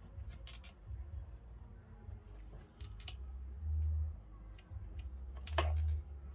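Small clicks and taps of card stock and a plastic glue bottle being handled on a craft mat, with two dull thumps about four and five and a half seconds in, the second the loudest.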